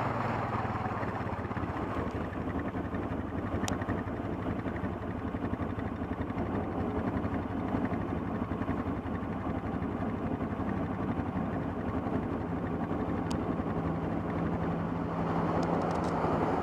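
ATV engine running steadily while riding a trail, its pitch rising slightly in the last few seconds.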